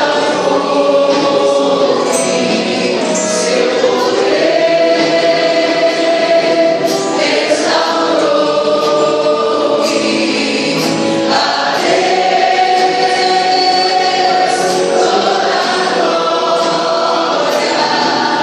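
Choir singing a Christian gospel song, mostly long held notes.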